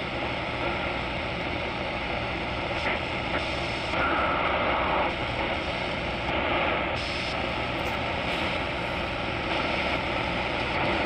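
Shortwave static and hiss from a Tecsun H-501x portable receiver's speaker as it is tuned up the 19 meter band in single sideband mode, with a brief tone about four seconds in.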